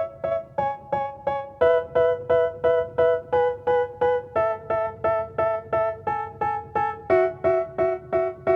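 Background music: a piano-like keyboard plays evenly repeated notes, about three a second, and the chord changes every second or two.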